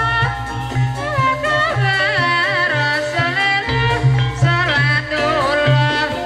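Live Javanese gamelan music accompanying an ebeg horse dance: a singer's wavering, ornamented melody over held gong and metallophone notes, with a steady low drum beat.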